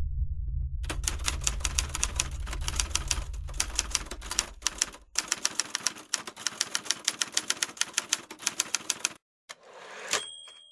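Typewriter keys clacking in a rapid run of keystrokes, with a short break in the middle, then a brief swish and a single bell ding near the end. A low hum underneath fades out over the first few seconds.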